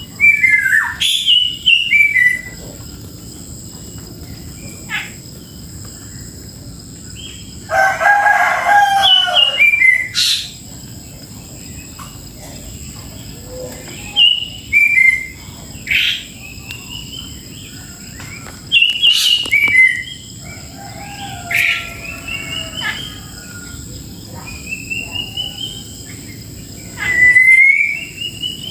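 Songbirds calling in repeated short phrases of whistled notes that step down in pitch, with a rooster crowing once about eight seconds in.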